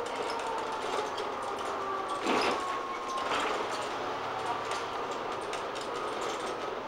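Volvo Plaxton President double-decker bus running along a street, heard from inside: steady running noise with a drivetrain whine that slides slowly down in pitch. There is a short, noisy burst about two and a half seconds in.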